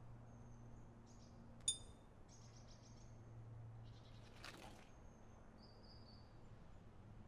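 Near silence: faint outdoor ambience of small birds chirping high and thin over a low steady hum. A sharp, short chirp comes about a second and a half in, and a brief rustle comes about halfway through.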